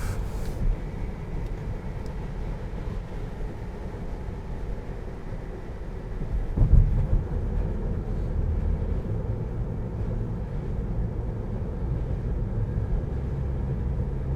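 Steady road and tyre rumble inside the cabin of a moving Tesla Model 3, an electric car with no engine note, with a low thump about halfway through as the car passes over a bump.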